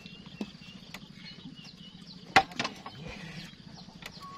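A cast with a spinning rod and reel. Fishing line runs off with a faint whirr at the start, then two sharp clicks from the rod and reel come a little over halfway through. Faint bird chirps sound in the background.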